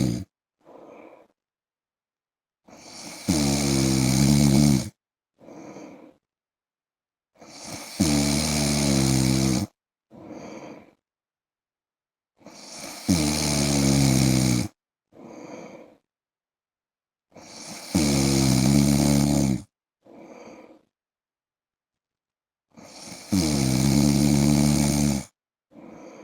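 A man snoring in his sleep: five loud, rattling snores about five seconds apart, each followed by a short, much softer breath.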